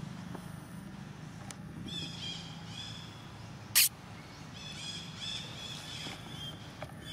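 Short, high-pitched animal calls repeated in two runs, each call rising and falling. A single sharp knock comes just before four seconds in, over a low steady hum.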